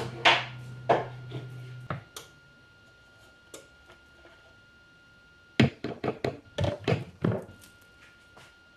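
Hard knocks and taps of kitchen containers and a utensil being handled on a wooden counter while chocolate sauce is moved from a blender cup into a small jar. A few knocks come in the first two seconds and a quick run of about eight comes past the middle. A low hum stops with a click about two seconds in.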